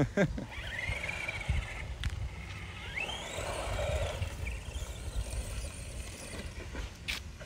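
Electric RC truck driving off across asphalt, its motor whining up in pitch as it accelerates about a second in and again about three seconds in, over a low rumble. A sharp click near the end.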